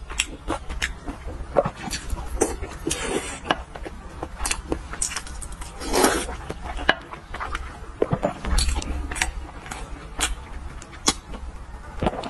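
Close-miked eating of braised pork belly and boiled eggs: wet chewing and lip smacks among many sharp clicks, with a loud slurp about six seconds in as food is sucked off the chopsticks.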